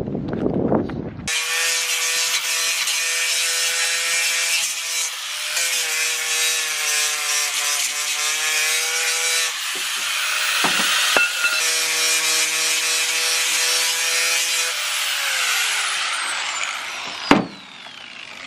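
Angle grinder starts up a second in and grinds steel with a steady whine and hiss, its pitch sagging at times under load. Near the end it is switched off and winds down with a falling whine, followed by a single sharp knock.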